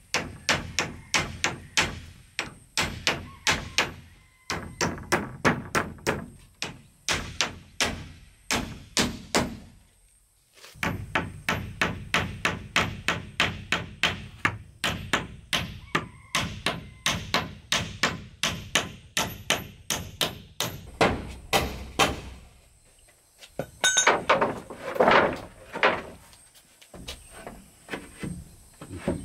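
Hammer driving nails into wood with rapid, steady blows, about two to three a second, in runs broken by short pauses. Near the end comes a louder, rougher noisy stretch.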